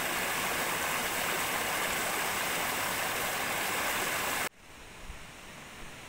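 Steady rushing hiss of running water, cutting off abruptly about four and a half seconds in and leaving a quieter, even hiss.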